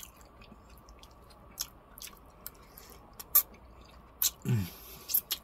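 Close-miked mouth sounds of a person eating spaghetti and garlic bread: wet chewing with scattered sharp lip-smacking clicks. There is a short hummed 'mm' about four and a half seconds in.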